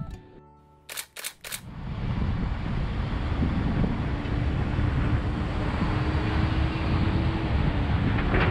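The diesel engine of a Hyundai R220LC-9 tracked excavator runs steadily with a faint steady hum, under heavy wind buffeting the microphone. About a second in come three quick sharp clicks, just before the engine and wind noise come in.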